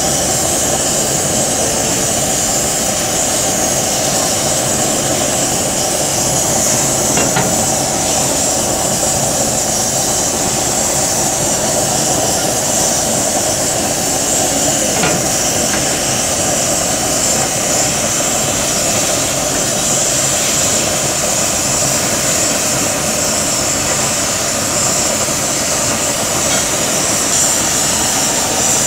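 Steaks sizzling in hot oil and juices on a ridged grill pan over a gas flame: a steady hiss, with a constant rushing noise underneath. Two light clicks, about seven and fifteen seconds in.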